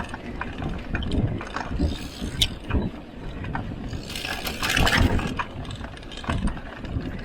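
Mountain bike rolling over rough trail: an uneven rumble from the tyres with scattered clicks and rattles from the bike, and a louder noisy swell about four seconds in.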